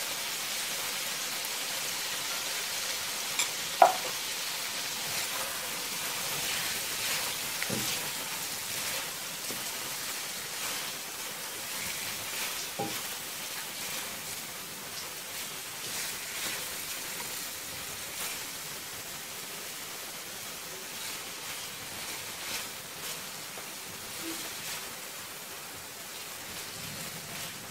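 Prawns in oyster sauce sizzling in a wok as they are stirred with a spatula: a steady frying hiss, with one sharp tap about four seconds in and a few softer knocks later.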